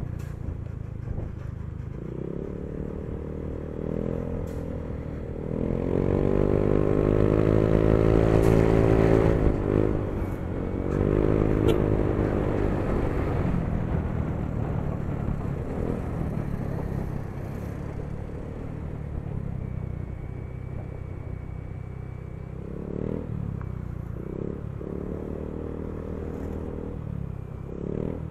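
Motor scooter engine running under way at speed, with road and wind noise. It revs up, rising in pitch and loudness from about six seconds in, eases off briefly near ten seconds, pulls again, then settles back to a steady cruise.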